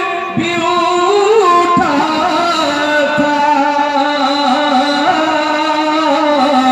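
A man singing a naat, an Urdu devotional poem in praise of the Prophet, into a microphone, drawing out long held notes that bend slowly in pitch.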